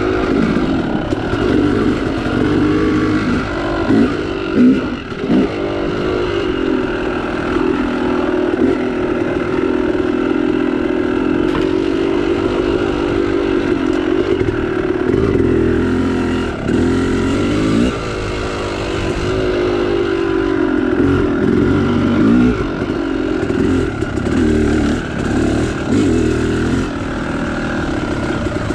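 Yamaha YZ two-stroke dirt bike engine running under the rider, its revs rising and falling over and over as the throttle is worked along a trail.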